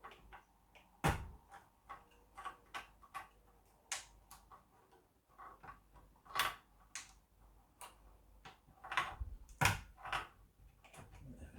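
Irregular clicks and light knocks of plastic cable connectors and wires being handled and pushed into place inside an Acorn RISC PC computer case. The sharpest clicks come about a second in and again near the end.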